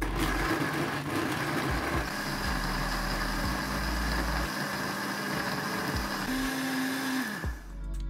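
Electric countertop blender running, its blade chopping chopped mango, orange and eggs into a smooth purée; the motor stops about seven and a half seconds in.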